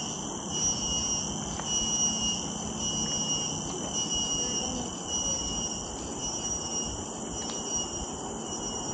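Tropical forest insect chorus: a steady, high-pitched, pulsing drone at two pitches, over a low rumble.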